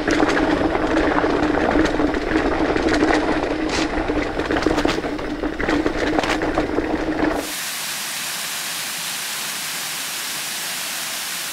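Mountain bike riding fast down rocky dirt singletrack: tyre and trail noise with frequent sharp clicks and rattles over a steady hum. After about seven seconds it cuts to the steady, even rush of a waterfall.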